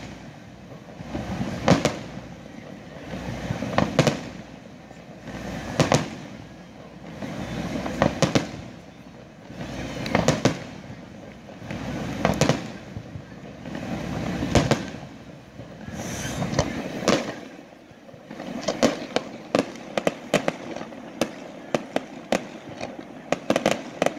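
Fireworks display: aerial shells bursting with a loud bang about every two seconds, then, about three quarters of the way through, a quick run of many sharp cracks as the shells fire in rapid succession.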